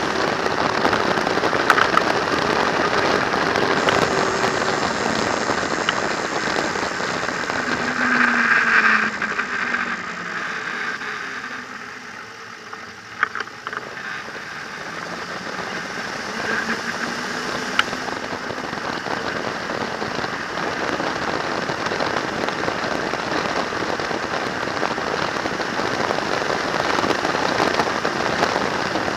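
Wind rushing and buffeting over the microphone of a camera on a moving trike, a steady hiss with the engine faint underneath. The rush eases for a few seconds in the middle as the trike slows, then builds again as it picks up speed.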